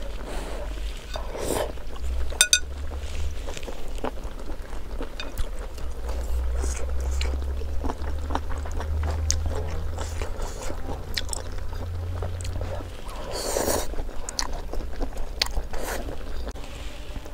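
A person chewing mouthfuls of food, with scattered light clicks of chopsticks and a spoon against a plate, over a low steady rumble.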